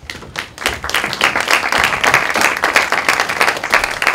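Theatre audience applauding: a few claps at first, swelling within about a second into steady, loud applause.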